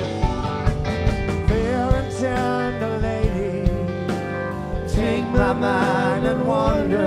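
Live rock band playing an instrumental passage: drums keep a steady beat under bass and guitars while a lead line bends and wavers, growing more active over the last couple of seconds.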